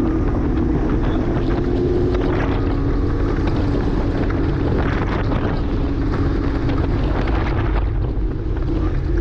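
2009 Porsche Cayman S's 3.4-litre flat-six running hard at speed on track, with tyre and wind noise. The engine note holds fairly steady and eases briefly about eight seconds in.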